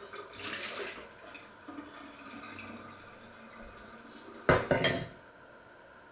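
Brief splash of running water at the kitchen sink, then a loud clatter of crockery: two or three sharp knocks close together about four and a half seconds in.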